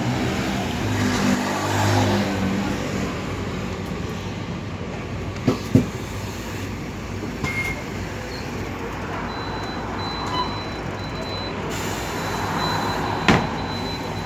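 MAN Lion City 12 city bus pulling in to the stop: its running drive is loudest in the first couple of seconds, then settles. Two sharp short sounds come, one about five and a half seconds in and one near the end, and a faint high tone sounds on and off in the second half.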